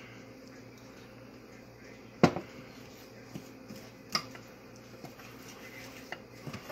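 A spoon stirring melted butter into an oat-and-flour crumble topping in a ceramic bowl, with a sharp clack of crockery about two seconds in and a lighter clink near the middle, over a steady low hum.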